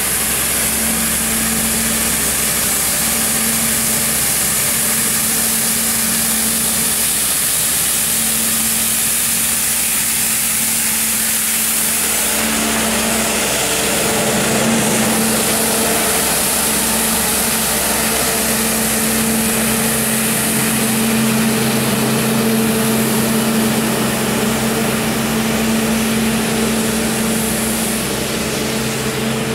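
Compact street sweeper driving with its side brushes sweeping: a steady engine hum under a strong high hiss, growing fuller about twelve seconds in as the machine comes close.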